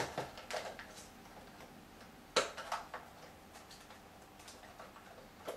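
Small plastic clicks and taps from handling the battery compartment of an airsoft P90-style gun while the battery wires are tucked in, with one sharper click about two and a half seconds in.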